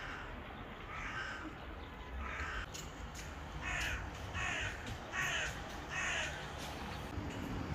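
A crow cawing, seven calls about a second apart over faint street background noise.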